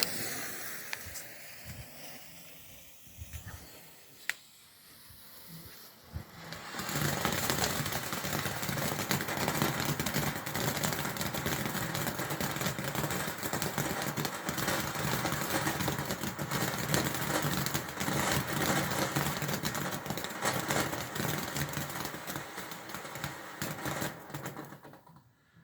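Firework fountain burning: after a few quiet seconds with a single sharp crack, it catches about six seconds in and gives a steady hiss full of dense fine crackling, which cuts off suddenly near the end.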